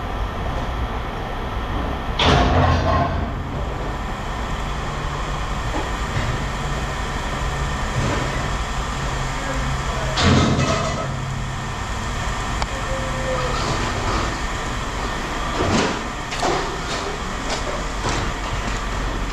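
A vehicle engine running steadily, with several loud clanks and bangs of scrap metal being handled. The loudest bangs come about two seconds in and about ten seconds in, and two more come close together near the end.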